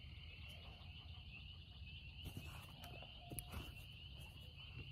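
Faint, steady high-pitched insect trill, like crickets, with a brief faint tone about three seconds in.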